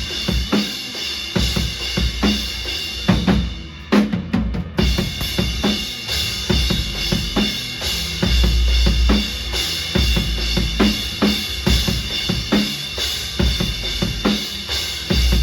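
Live rock band playing loud, with the drum kit to the fore: a steady run of kick and snare hits. The music thins out briefly about four seconds in, and a heavy deep bass comes in strongly about eight seconds in.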